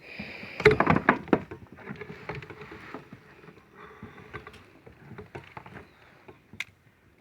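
Irregular knocks, clicks and rustling on a fishing kayak on the water, loudest about a second in and growing fainter after.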